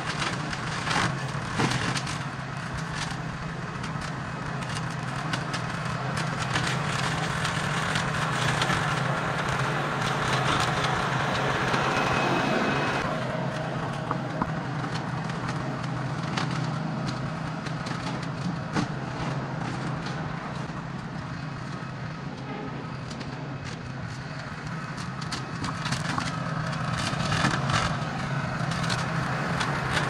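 Small gasoline engine running steadily under load while tall grass and brush are cut, with frequent crackling and snapping of stalks and sticks.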